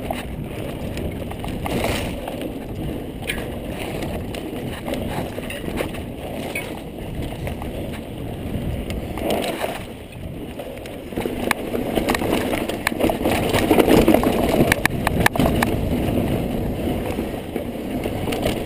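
Kona Process 134 full-suspension mountain bike running fast down a dirt singletrack: a steady rush of tyre and air noise, with clicks and rattles from the bike over bumps. It grows louder and busier from about twelve seconds in.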